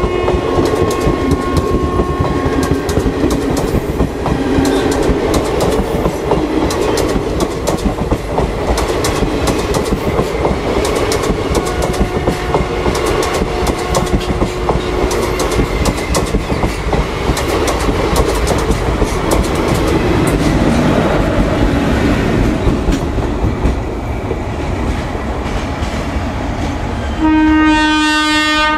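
Indian Railways express train passing close at speed behind a WAP-4 electric locomotive: a steady rumble of coaches with rapid clicking of wheels over rail joints, and a few faint horn tones. The rumble eases off near the end, then a loud, steady locomotive horn sounds.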